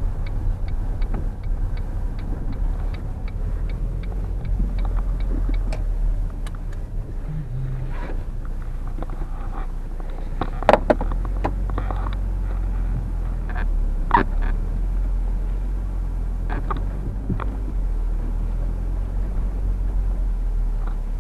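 Car driving, its engine and road noise a steady low rumble. A regular ticking runs for the first several seconds, and there are a few sharp knocks and clunks later on.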